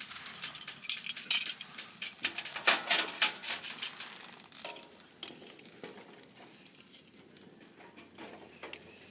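Rapid clinking and clattering of small hard objects being handled, busiest in the first five seconds, then thinning to scattered clicks.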